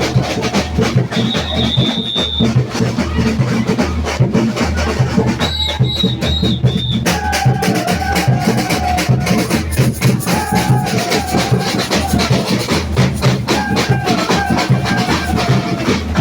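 Batucada samba percussion ensemble playing a fast, dense groove: low surdo-type drum pulses under constant shaker and snare strokes. A high whistle sounds one long blast about a second in and four short blasts around six seconds in, and from about seven seconds a wavering melodic line rises over the drums.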